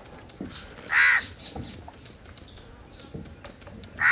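A crow cawing: one harsh caw about a second in and another right at the end.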